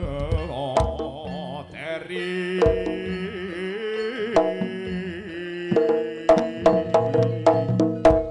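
Live Javanese gamelan music accompanying a barong dance: drum strokes and ringing pitched percussion under a wavering, sustained melody. The drumming thins out in the middle and comes back in quick strokes over the last couple of seconds.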